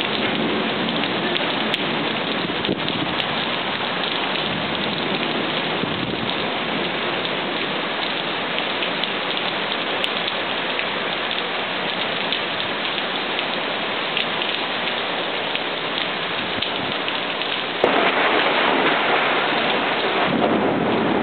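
Steady heavy rain of a thunderstorm. Near the end, a thunderclap breaks in suddenly and the sound stays louder.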